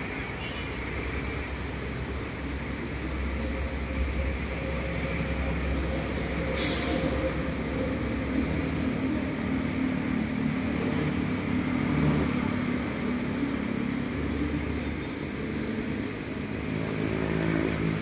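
Steady low mechanical rumble of running engines, with a faint drone that comes and goes in the middle and a short hiss about seven seconds in.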